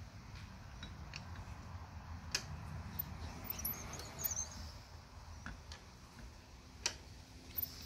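Faint mechanical clicks and creaks as a 350 small-block Chevrolet's crankshaft is turned slowly by hand, with a low steady rumble beneath. There are two sharper clicks, one about two seconds in and one near the end, and faint high squeaks a few seconds in.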